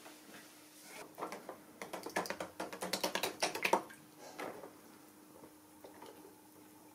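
Gloved hand working a sheet of printed fabric under water in a plastic tub: a quick run of small clicks and crackles, busiest in the middle, then a few scattered ones, over a faint steady hum.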